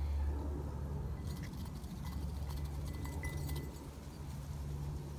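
Ducks moving about on grass: a run of soft rapid clicks and rustles from about a second in until near four seconds, over a steady low hum.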